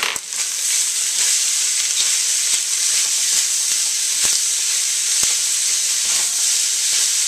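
Fried rice sizzling steadily in a cast-iron wok as it is stir-fried with a slotted spatula. A few light taps and scrapes of the spatula come through the hiss.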